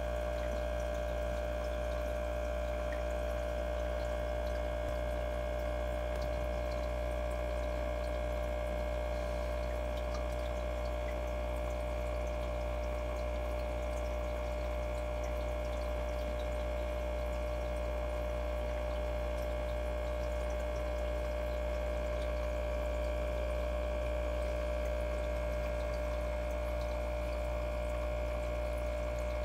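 Aquarium filter running: a steady motor hum with water trickling and splashing.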